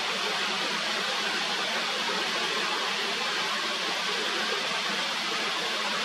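A mountain stream rushing steadily, an even hiss of flowing water.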